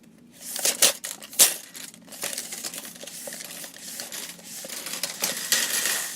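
Tape measure being opened and closed: the blade rattles out and back with two sharp clicks, the loudest about a second and a half in, then a longer, softer rattle that grows louder near the end.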